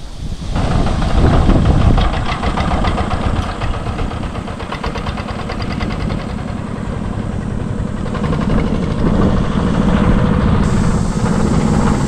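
Single-cylinder diesel engine of a two-wheel walking tractor (gyeongungi) pulling a trailer. It chugs loudly with a rapid, even knock as the tractor drives off.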